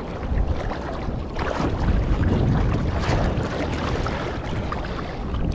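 Wind buffeting the microphone, with water sloshing and lapping around a float tube at sea.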